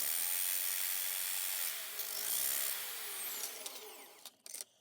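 Cheap drill bit sharpener grinding the tip of a twist drill bit: a steady, harsh rasping of the grinding stone against the steel that dies away near the end, followed by a few short clicks.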